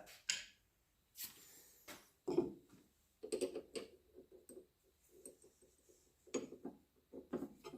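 Faint clicks and short rattling runs of a Ryobi drill press chuck being tightened with a chuck key, the key's teeth turning against the chuck's gear ring.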